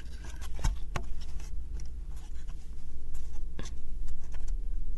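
Thin wooden puzzle pieces of a 3D woodcraft stroller kit being handled and pushed into each other's slots: light scratching and rubbing of wood on wood, with scattered sharp clicks, a few louder than the rest.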